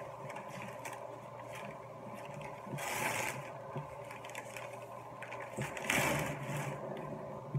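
Newspaper wrapping crinkling and rustling as it is pulled open from around a potted orchid, with louder bursts of crackling about three seconds in and again about six seconds in. A steady low hum runs underneath.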